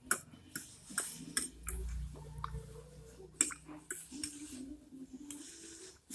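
A person chewing a mouthful of noodles close to the microphone, with scattered short mouth clicks and smacks.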